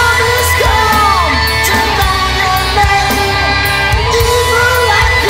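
Hard rock song playing: a full band with electric guitar and drums, and a lead melody that bends up and down in pitch.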